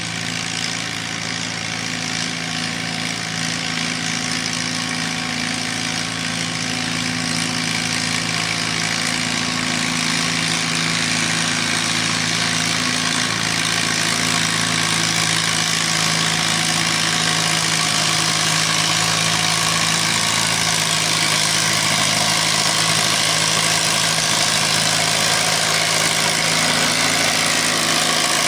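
McCormick Farmall M tractor's four-cylinder engine running at a steady pitch under load while it pulls the sled, getting gradually louder.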